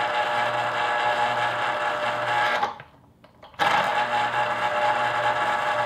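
Cuisinart Pulp Control citrus juicer's electric motor spinning the reamer under a pressed lime half, a steady whir. It cuts out for about a second, roughly two and a half seconds in, then starts again. The motor runs only while fruit is pressed down on the reamer.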